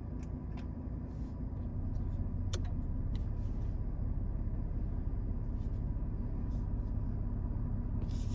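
Toyota 4Runner's 4.0-litre V6 idling steadily, with a few faint clicks.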